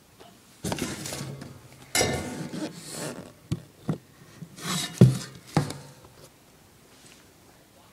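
Cardboard box being handled up close: rustling and scraping of cardboard, with several sharp knocks in the middle.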